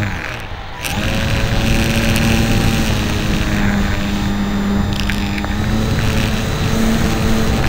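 Hobbyzone Super Cub RC plane's electric motor and propeller running, heard from a camera on the plane with a rush of wind. The motor drops off briefly near the start and comes back about a second in at a higher pitch, then holds steady.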